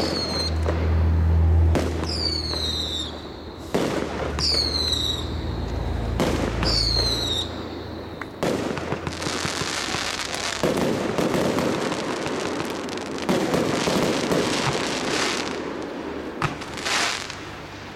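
Aerial fireworks bursting: a series of sharp bangs with low rumbling echoes, the first few followed by short high whistles falling in pitch. From about eight seconds in comes a long stretch of dense crackling.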